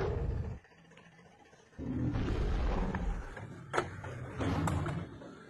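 Deep roar from an animatronic dinosaur, stopping about half a second in and sounding again from about two seconds in for a second or so. A couple of sharp knocks come near the end.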